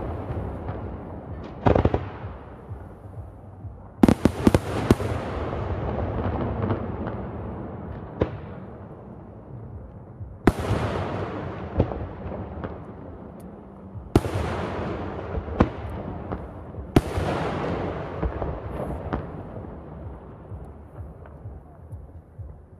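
Aerial firework shells bursting in a traditional Italian fireworks display: about ten loud bangs spaced one to several seconds apart, each followed by a long rolling echo that dies away.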